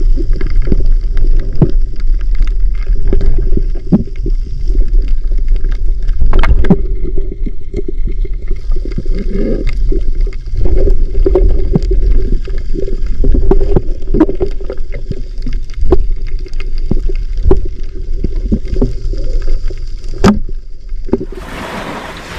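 Underwater sound from a diving camera: a steady low rumble of moving water with scattered clicks and knocks. Near the end it gives way to a steady hiss.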